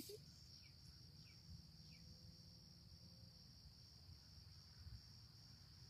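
Faint, steady, high-pitched insect chirring in the grass, with a low rumble beneath it.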